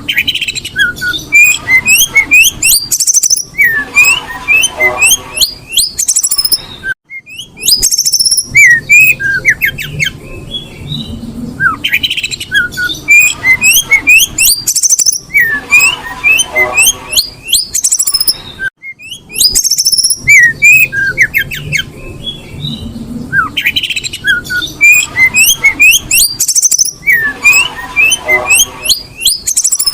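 Female Oriental magpie-robin (kacer) calling in breeding condition: repeated bursts of quick, squawky chirps and short whistled sweeps, recurring every few seconds with brief pauses.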